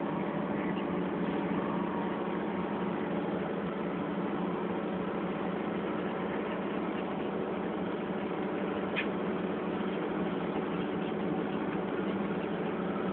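Atlas excavator's diesel engine running steadily as the machine works, with one brief high click about nine seconds in.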